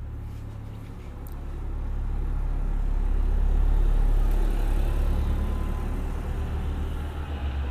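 Low engine rumble of a motor vehicle going past, swelling to its loudest about halfway through and then fading, over a steady low hum.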